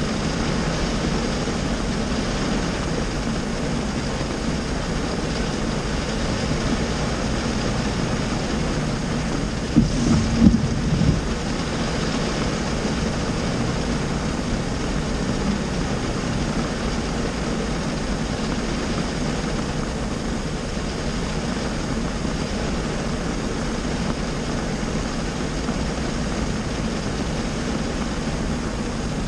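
Heavy rain pelting a car's windshield and roof, heard from inside the cabin as a steady, even rush. A brief, louder low knock-like burst comes about ten seconds in.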